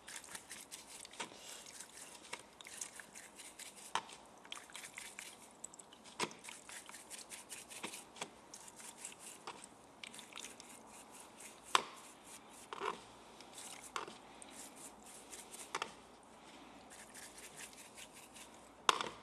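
A brush wet with kerosene scrubbing a spark plug: rapid, uneven scratchy strokes, with a few sharper knocks, the loudest about twelve seconds in.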